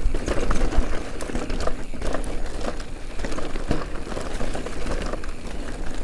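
Electric mountain bike with a Rocky Mountain Dyname 4.0 mid-drive motor descending a rough, rocky dirt trail: tyres crunching over gravel and stones, with many small clicks and rattles from the bike over the bumps.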